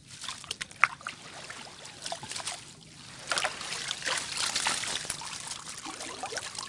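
Water splashing and streaming as a mesh net fish trap is pulled up out of a muddy ditch, water draining off the netting. Sharp splashes come about a second in, and heavier, denser splashing and running water from about three seconds on.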